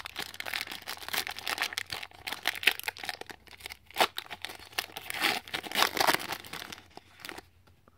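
Foil wrapper of a trading-card pack being torn open and crinkled by hand: an irregular, dense crackle that stops near the end.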